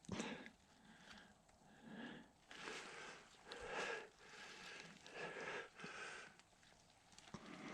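A person breathing audibly close to the microphone, a string of short breaths in and out.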